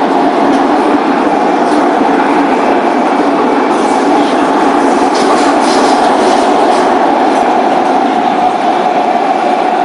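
Metro train in motion heard from inside the car: steady running noise with a held motor whine that grows stronger near the end, and faint clatter from the wheels on the rails. The traction motors make a sound that is typical of a noisy, badly running motor.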